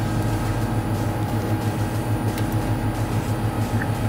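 Sanremo espresso machine running with a steady, slightly pulsing low hum while its group head is rinsed through.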